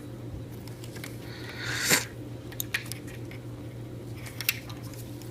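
Handling noises of a lighter and a paracord bracelet: a short rasping swell ending in a sharp click about two seconds in, then a few small clicks, over a steady low hum.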